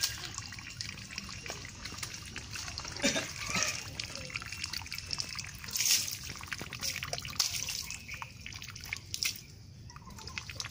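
Water poured from a plastic scoop over a horse's leg, splashing and dripping onto wet ground as the leg is rubbed by hand, with several louder splashes.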